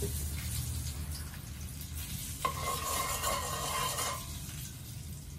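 Metal ladle stirring and scraping across the bottom of a stainless steel stockpot holding heating oil: a grating scrape with a steady ringing tone, starting abruptly about two and a half seconds in and lasting under two seconds.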